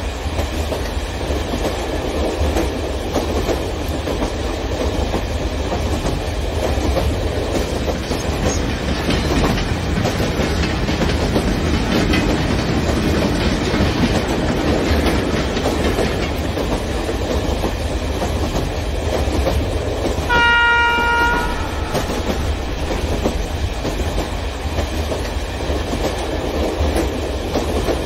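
O scale model trains rolling along outdoor track, a steady noise of wheels running over the rails. About twenty seconds in, a model diesel locomotive's horn sounds once for about a second.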